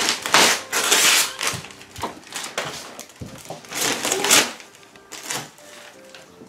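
Wrapping paper being ripped and torn away by hand, in a series of loud rips and crinkles, the longest about half a second in and another burst around four seconds in.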